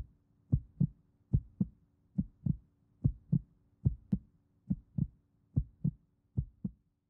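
Heartbeat sound effect: pairs of low thumps, lub-dub, repeating steadily about once every 0.8 seconds over a faint steady hum.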